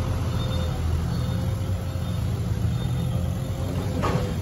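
Heavy diesel engine running steadily, a low rumble with a faint steady whine over it, at an earthmoving site. About four seconds in, a short sharp sound cuts across it.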